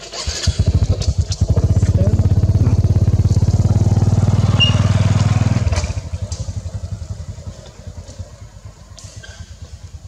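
A motorcycle engine running close by with a fast, even beat. It is loudest through the middle, then drops away about six seconds in and keeps fading.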